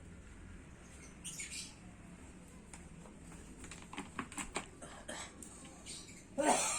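A scatter of light clicks, taps and short scrapes from hand work on the table and laminate, with a louder scraping squeak near the end.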